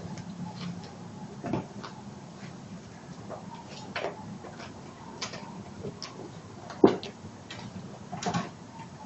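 Irregular light taps, clicks and knocks of Mekong bobtail kittens at play: claws and paws on a tiled floor and bumps against a rope-wrapped play cube, with one louder knock near the end.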